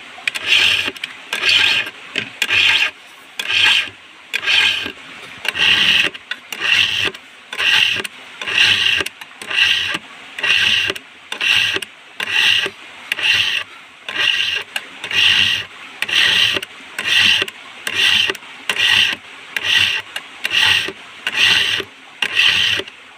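Hand file rasping across a chainsaw chain's cutters in steady, even strokes, about two a second: the chain is being sharpened.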